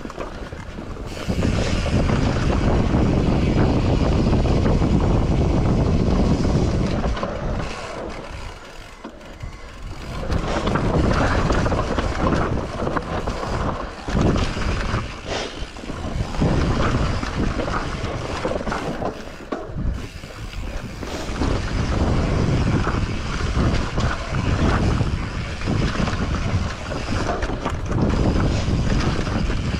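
Mountain bike riding fast down a rough trail: a loud rumble of tyres and bike rattle over the ground, with wind buffeting the camera microphone and many small knocks. It eases off briefly about a third of the way in.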